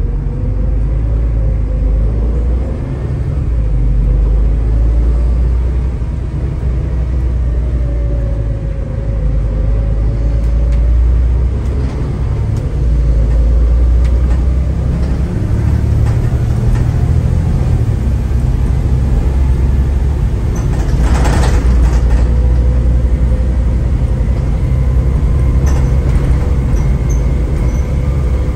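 Double-decker bus engine and road noise heard from inside the saloon: a low rumble with the engine note rising and falling as the bus pulls away and slows. A short hiss about three-quarters of the way through.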